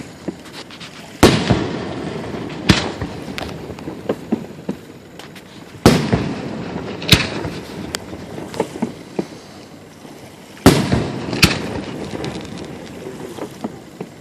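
Aerial fireworks shells bursting: six loud booms spread a few seconds apart, each trailing off in a rumbling echo, with smaller pops and crackles between them.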